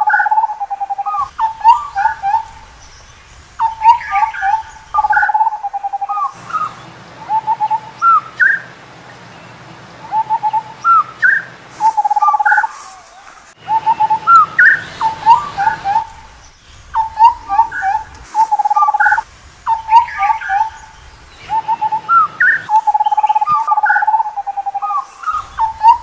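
Indian scimitar babbler calling: repeated phrases of mellow whistled hoots on one pitch, with short upslurred notes mixed in. The phrases come in quick runs separated by brief pauses.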